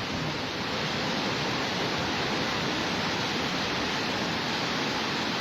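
Floodwater rushing, a loud, steady torrent noise.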